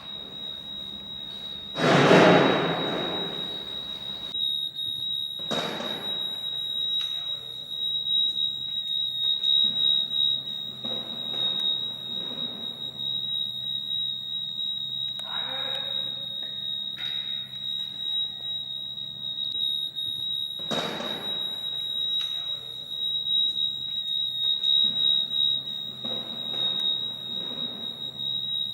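A fire alarm sounding one steady high-pitched tone. A loud thud comes about two seconds in, and a few more knocks and clatters follow later.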